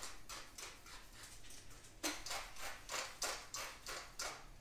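Hand-twisted seasoning mill grinding over raw chicken breasts: a run of short grinding clicks, about four a second, faint at first, then after a short pause a louder run from about two seconds in.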